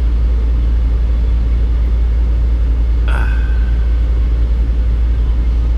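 Semi-truck diesel engine idling, heard from inside the cab as a steady low rumble.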